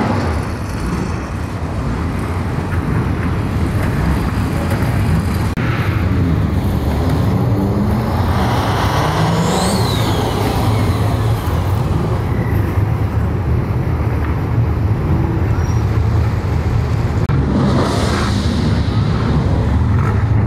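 Car and truck engines rumbling at low revs as several modified vehicles drive out slowly one after another. An engine finishes a sharp rev right at the start, and about ten seconds in a high whistling tone glides down in pitch.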